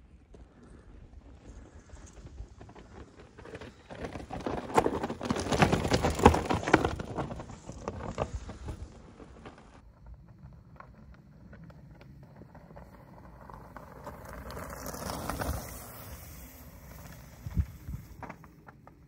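Mountain bike rolling over a rocky gravel trail: tyres crunching on stones with rattling clicks from the bike, swelling loudest about four to eight seconds in and again more softly a little later, with a single sharp knock near the end.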